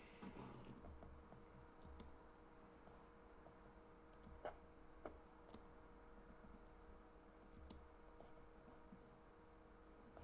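Near silence: room tone with a faint steady hum and a few faint computer keyboard clicks, the clearest two about four and a half and five seconds in.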